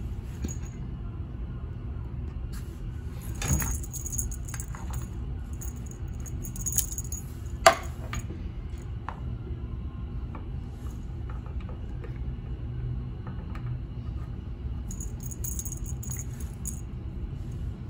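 A cat wand toy's streamers and ball jingling and rattling in short bursts as a cat bats and tugs it, with one sharp tap about three-quarters of the way through the first half, over a low steady hum.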